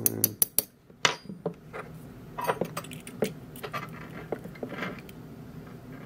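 Small metal clicks and clinks of a dimple lock cylinder's brass plug, pins and tweezers being handled over a plastic pin tray: a quick run of sharp clicks in the first half second, then scattered light taps and rattles.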